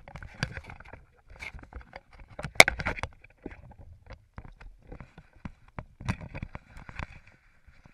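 Irregular knocks, clicks and rustling of handling noise as gear and the camera are moved about, with one louder knock about two and a half seconds in.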